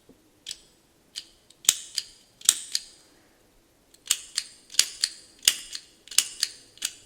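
Vintage Eveready automatic petrol lighter's mechanism being worked repeatedly, each press giving a sharp metallic click, often two in quick succession, as the flint wheel strikes sparks. A few scattered clicks at first, then after a short pause about three seconds in, a quicker, steady run of clicks: the freshly cleaned mechanism now working freely.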